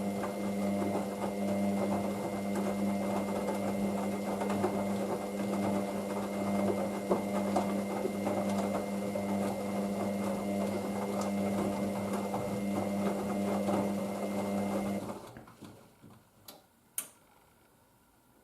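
Hoover DYN9144D3X washing machine in its main wash, the drum motor running with a steady hum as the drum turns. About fifteen seconds in the motor stops, and a few sharp clicks follow.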